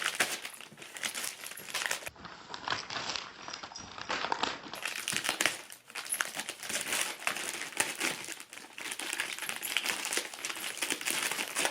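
Wrapping paper crinkling and tearing in quick, irregular crackles as a dog rips open a wrapped gift.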